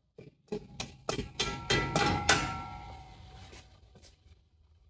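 Hammer tapping a spread steel U-bolt down over a driveshaft U-joint: about eight quick metal-on-metal strikes, roughly three a second. The last strike is left ringing for about a second, and two lighter taps come near the end.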